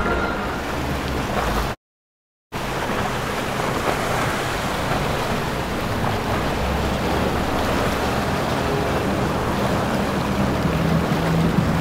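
Steady rush of water around boats moving through the channel, with a low engine hum underneath. The sound cuts out completely for under a second about two seconds in.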